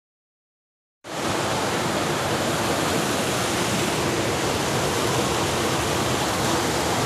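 Water falling in a sheet down a tiled wall into a churning pool: an ornamental water-wall fountain. It makes a steady rushing, splashing noise that starts suddenly about a second in, after silence.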